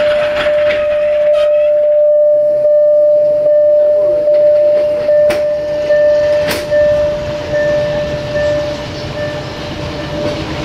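A diesel train running close by: a steady high-pitched whine held throughout over a rumbling noise, with a few sharp clacks of wheels over rail joints.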